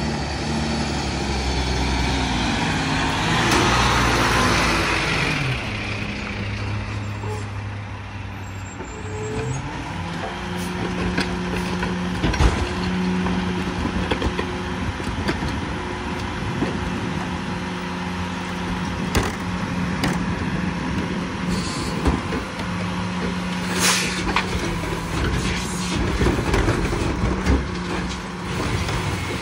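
Diesel engine of a Mack MRU rear-loader garbage truck pulling up, with a loud air-brake hiss about four seconds in. About ten seconds in the engine speeds up and holds a steady higher pitch while the McNeilus rear loader's cart tipper works, with scattered knocks and bangs as a cart is lifted and dumped.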